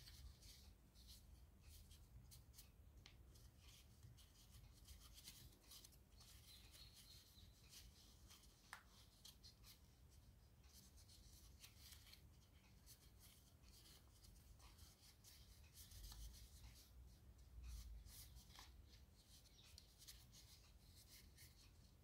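Faint, irregular crinkling and rubbing of origami paper as fingers fold and press creases into it, over a low steady hum.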